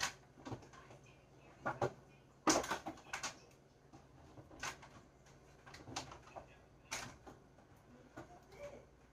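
Groceries being handled and set onto shelves: scattered knocks and clunks with rustling in between, the loudest cluster about two and a half seconds in.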